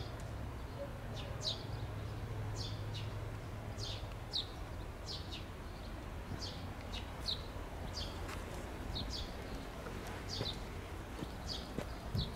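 Small bird chirping over and over: short, quick downward-sliding chirps, one or two a second, over a low steady hum.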